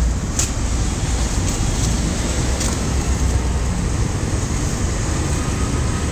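Steady low rumble of street traffic, with a few brief, faint crackles over it.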